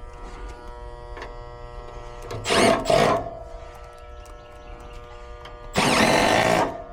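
Air conditioner contactor buzzing with a steady electrical hum. About two and a half seconds in and again about six seconds in comes a loud burst of noise, each lasting under a second.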